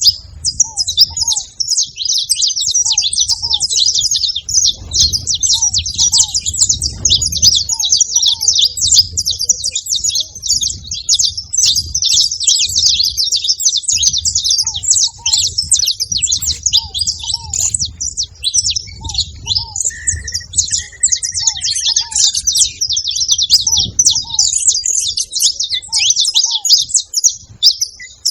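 Saffron finches chirping, a dense unbroken chatter of quick, high notes, with short lower notes repeating about once a second and a brief whistle about two-thirds of the way through.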